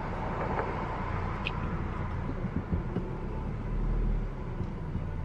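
Car moving slowly while being manoeuvred into a parking spot, heard from inside the cabin: a steady low engine and road rumble, with a brief low swell about four seconds in.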